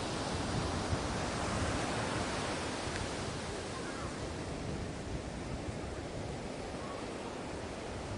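Sea waves washing ashore in a steady rush of surf, easing slightly about halfway through.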